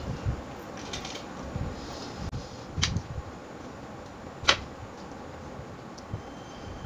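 Quiet sounds of eating and handling tableware at a table, with two sharp clicks about a second and a half apart, the second louder.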